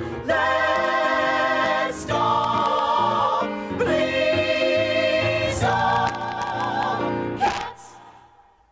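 Finale of a musical-theatre song: a chorus of voices with band backing sings four long held chords with vibrato, each broken off briefly. It ends on a sharp final accent about 7.5 seconds in, and the sound then dies away.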